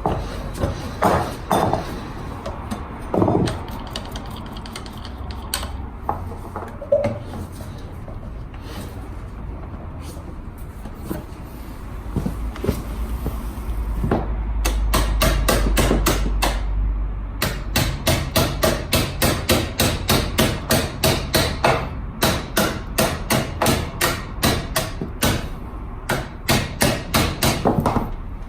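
Scattered knocks and clatter, then a long run of hammer blows, about three to four a second with short breaks, from work to free the seized rear wheel of a Honda Today scooter.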